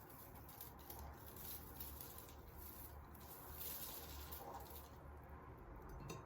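Faint rustling and light clicks of something being handled, over a steady low hum.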